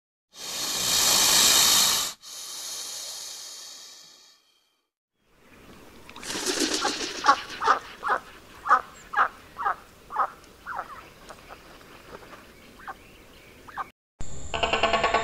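A snake hisses twice: a loud hiss, then a longer one that fades away. After a pause a mallard hen quacks in a series of short quacks, about two a second, growing weaker. Music starts just before the end.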